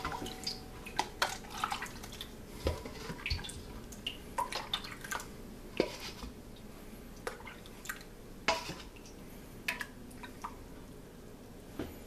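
Milk mixture scooped from a stainless steel bowl with a plastic measuring cup and poured into plastic cups: irregular light taps and clinks of the cup against the bowl, with dripping and splashing liquid.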